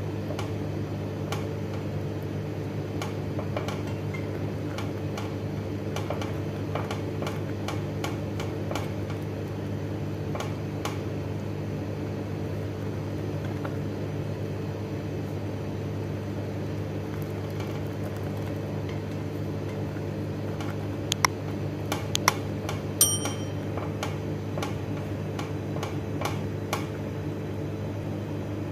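Wire whisk stirring a cheese sauce in a stainless steel saucepan, its wires ticking lightly against the pan over and over, with a few sharper metallic clinks about three quarters of the way through. A steady low hum runs underneath.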